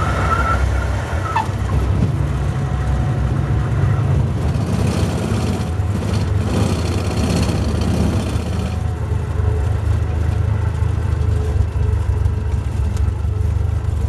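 Cabin noise of a small single-engine propeller plane landing: a steady deep engine and propeller drone. A high steady tone at the start ends about a second and a half in with a short downward slide, and a louder hiss comes in for about four seconds in the middle.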